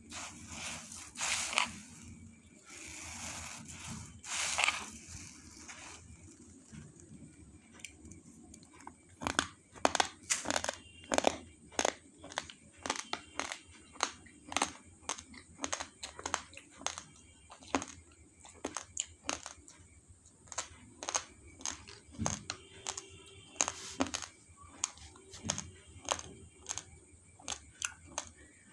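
Dry basmati rice grains rustling and swishing as a hand stirs them in a pot, then from about nine seconds in a steady run of sharp crunches, roughly one or two a second: raw rice grains being chewed.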